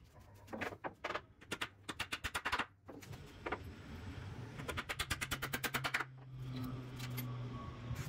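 Hammer driving nails into block board, in two runs of quick strikes, several a second, one early and one in the middle. A low steady hum comes in near the end.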